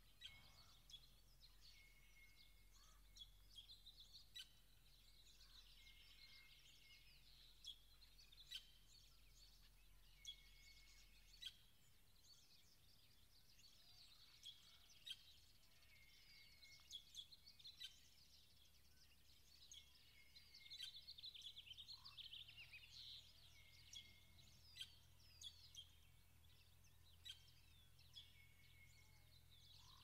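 Several wild birds singing at once, faint: a mix of chirps and trills, with a short level whistled note repeated every couple of seconds.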